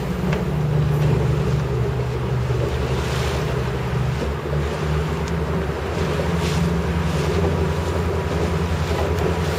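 Inflatable boat's motor running with a steady low drone while the boat is under way, with water rushing along the hull and wind noise on the microphone.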